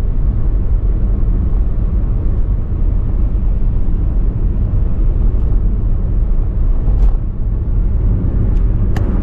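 Motorbike riding noise: a steady rumble of wind on the microphone over the engine and tyres, with two short clicks near the end.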